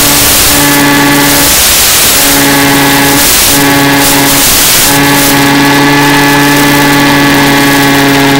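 Electric motor and propeller of a Mini Skywalker FPV plane, a steady hum over hiss, picked up onboard. The hum drops out briefly several times in the first half and then runs unbroken.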